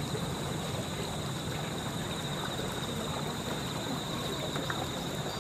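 Steady outdoor background: an even hiss with a constant high-pitched buzz of insects in the trees, and a faint tick or two near the end.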